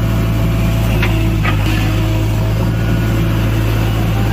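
Diesel engine of a JCB backhoe loader running steadily close by, a constant low hum.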